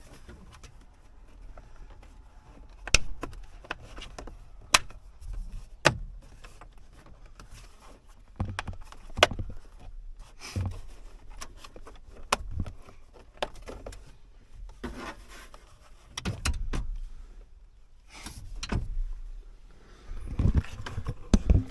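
Plastic steering-column trim pieces being pressed and snapped together: irregular sharp clicks and knocks as the tabs pop into place, with rustling handling in between.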